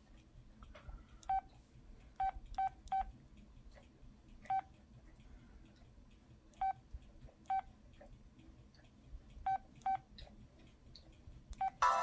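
LG Scoop (AX260) cell phone keypad beeps as its keys are pressed to move through the menus: about ten short beeps, all at the same pitch, at irregular intervals. Right at the end a ringtone starts playing from the phone.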